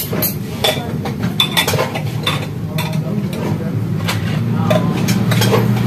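Metal pot lid clicking and clinking irregularly on a covered, simmering pot of fish stew, over a steady low hum.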